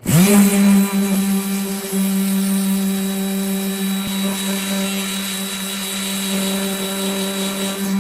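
Electric sander switched on, spinning up quickly, then running at a steady hum with a hiss of abrasive on the board as it sands cured epoxy off a walnut slab.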